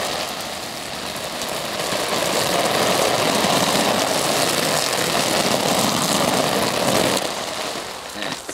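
Hose water spraying heavily onto the polyester flysheet of a Quechua MH100 Fresh & Black dome tent to simulate heavy rain: a dense, loud hiss that builds over the first couple of seconds, holds, then dies away about seven to eight seconds in.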